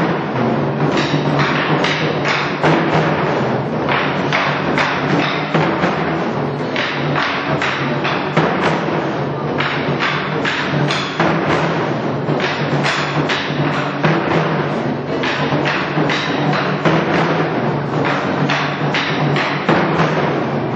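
Korean traditional drum ensemble playing live: many drums struck together in a dense, steady rhythm.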